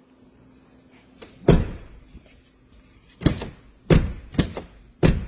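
Volvo V70R front passenger door shut five times in a few seconds, each a sharp thud with the latch clicking, as the replacement door latch is tested.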